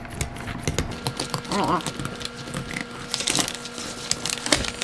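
Fillet knife slicing along a whitefish's spine, a run of irregular small crunching clicks as the blade cuts through the rib bones.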